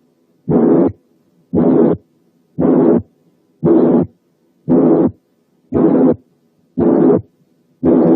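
Auscultated heart with a harsh systolic murmur: a rough, grating noise fills each systole. It repeats evenly about once a second, eight beats, a slow regular rhythm.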